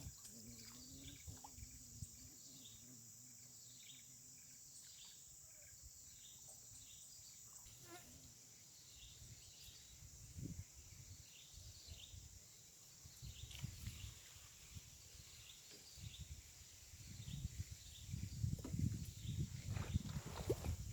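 Insects shrilling in a steady high drone, with a bird repeatedly giving short falling chirps. Low rumbling knocks come in near the end.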